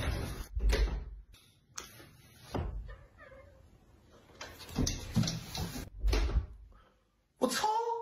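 A door banging and thudding several times as it is shoved and slammed, with a short pitched cry near the end.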